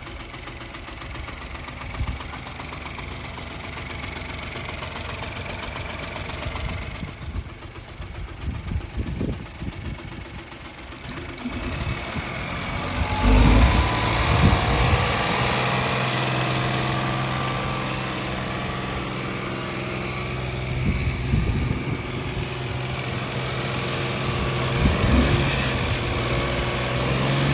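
Opel Corsa's 1.0 turbo B10XFT three-cylinder engine running roughly with a tapping noise. About halfway through it turns louder and steadier. It starts hard and runs poorly: two of its three cylinders have only about 100 psi compression against 200 psi on the third.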